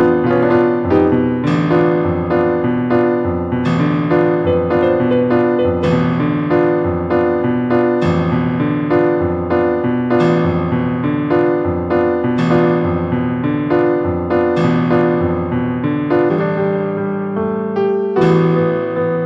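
Background music: piano playing a steady run of struck notes.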